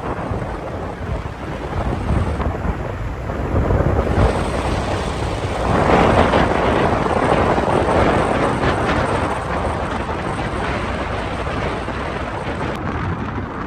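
Wind buffeting the microphone on a moving motorbike, with road and engine noise beneath. The rush swells louder for a few seconds midway.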